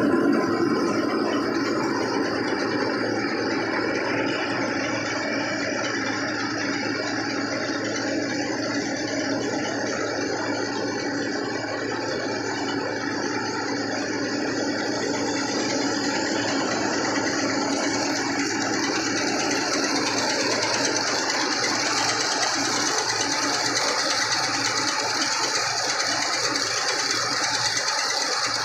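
Tractor-powered rice mill running steadily under load, a continuous rattling mechanical din from its belts, pulleys and hulling and polishing machinery.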